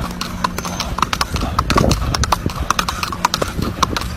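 Horse hooves clip-clopping: a quick, irregular run of sharp hoof strikes, several a second.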